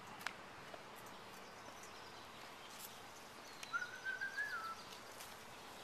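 Faint outdoor ambience with a few soft clicks, and about four seconds in a single whistled bird note, about a second long, that rises slightly and then drops.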